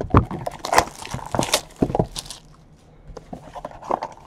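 Cardboard trading-card hobby boxes being handled: a quick run of sharp knocks, taps and scrapes as the boxes are picked up, a quieter moment, then more knocks as one box is pulled open near the end.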